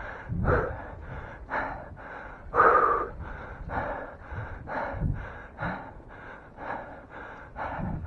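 A man panting hard, about two heavy breaths a second, the loudest about two and a half seconds in. He is out of breath from hard riding.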